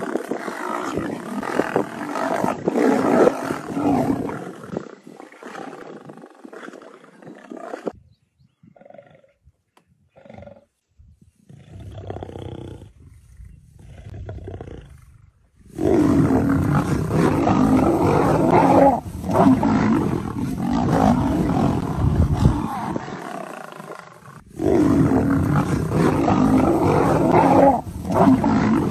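Lions growling and snarling as they attack a leopard on the ground. Loud, rough snarling comes in long bouts, with a quieter spell of several seconds in the middle.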